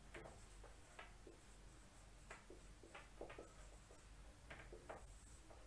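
Faint, short strokes of a marker pen writing on a whiteboard, coming at uneven intervals.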